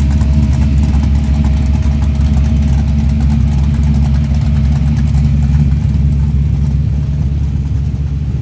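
Holden VK Commodore Calais engine running at low revs, a deep, steady rumble that gets a little quieter near the end.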